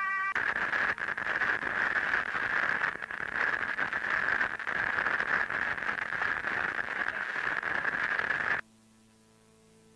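Harsh crackling static, like a glitching videotape or a jammed signal. It cuts off suddenly about eight and a half seconds in, leaving only a faint steady hum.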